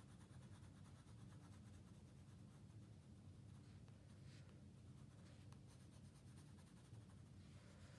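Faint scratching of a colored pencil shading on paper, over a low steady room hum; a couple of strokes stand out, about four seconds in and near the end.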